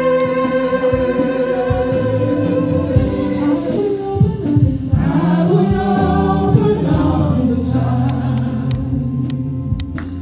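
Gospel choir singing a slow worship chorus with long held notes over a steady low bass.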